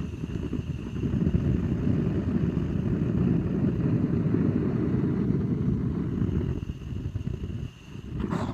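Gas from a canister burning as a jet of flame to light firewood: a steady low rumble that dips briefly near the end, then cuts off.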